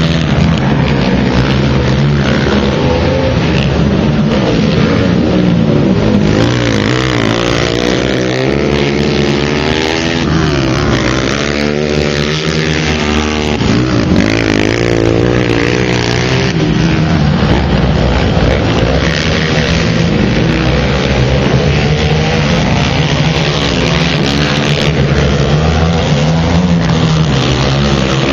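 Several small off-road racing engines running hard around a dirt track, their pitch rising and falling as the riders throttle up and back off, with the strongest changes in pitch near the middle.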